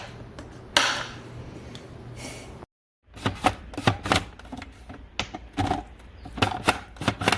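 Irregular sharp clicks and knocks of hard objects being handled, a few at first and then faster and busier after a brief silent gap about three seconds in.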